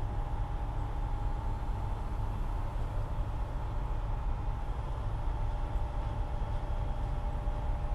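An engine or machine running steadily at an even speed, with a low rumble and a constant whine that never changes.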